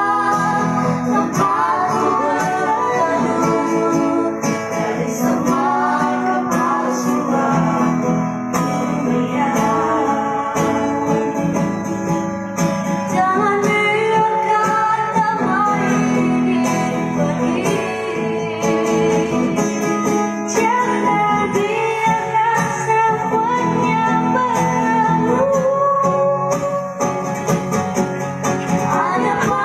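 Vocal duet singing a song over acoustic guitar accompaniment.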